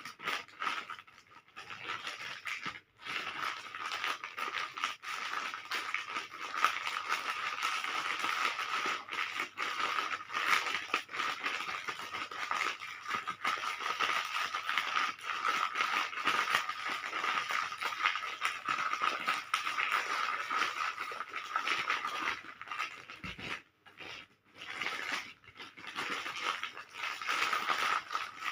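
Plastic candy wrappers crinkling and rustling continuously as they are handled, with short breaks a few seconds in and near the end.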